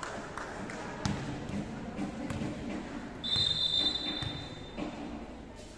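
A volleyball striking and bouncing with dull thuds, then a referee's whistle blown once, held for about a second and a half, a little past three seconds in. A low murmur of voices runs underneath.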